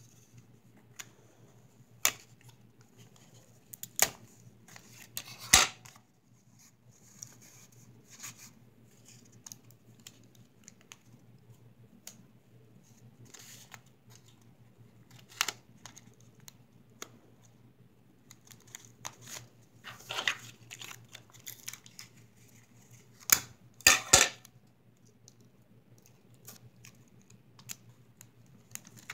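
Clear sticky tape pulled off a desk dispenser roll and torn on its teeth, a handful of sharp rips scattered through, with paper rustling and handling between them as the tape is pressed along paper edges.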